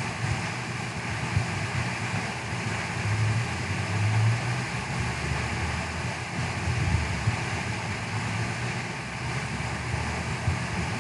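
Milling machine running steadily, a continuous low motor hum with a spindle whine above it.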